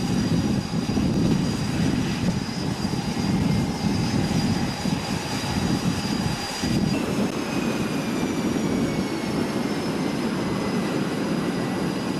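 F/A-18 Hornet-family fighter jet's engines running as it taxis onto the catapult: a steady deep rumble under a high jet whine. About seven seconds in, the whine shifts to a tone that slowly falls in pitch.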